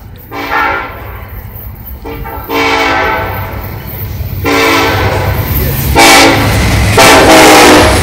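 Union Pacific diesel freight locomotive's air horn played in a series of about five blasts of several notes at once, short and long, each louder than the last as the train approaches. A low rumble builds underneath as the locomotive nears.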